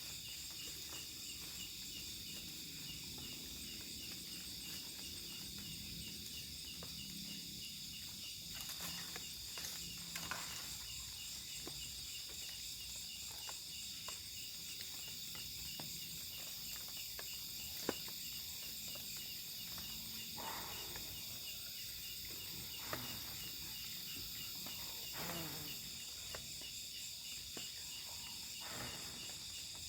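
Night insect chorus of crickets: several steady high trills, one of them with a fast, even pulse. A few soft taps or knocks sound now and then.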